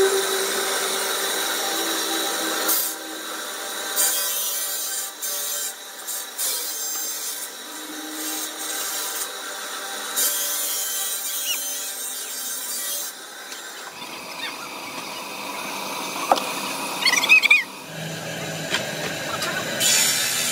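Block-cutting saw with circular blades grinding through a stone block under a water spray: a steady hiss of cutting and water. Brief high squeaks come about three-quarters of the way through.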